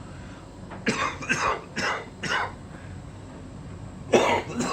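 A person coughing: a quick run of four coughs about a second in, then a harder cough near the end. Under the coughs is the steady low hum of the running heat-pump tumble dryer.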